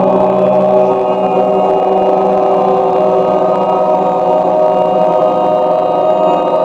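A group of people chanting a long held vowel tone together, several voices sustaining steady pitches without a break, as vowel toning for chakra meditation.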